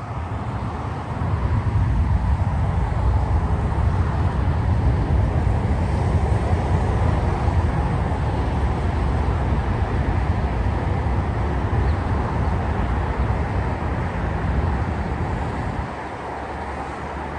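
Jet airliner's engines roaring nearby, a loud rumble that swells about a second in and eases off near the end.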